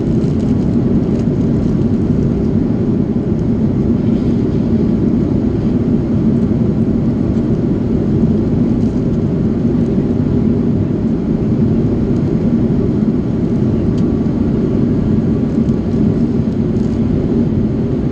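Steady cabin drone of an Airbus A330-200 in flight, heard from a window seat beside the wing: engine and airflow noise with a steady low hum.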